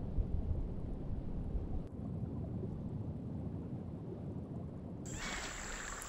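Muffled underwater rumble of moving water. About five seconds in it gives way to a brighter surface water sound with a thin steady high tone.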